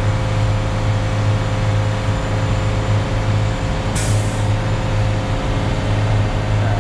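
Concrete mixer truck's diesel engine running steadily, with a short hiss of released air about four seconds in.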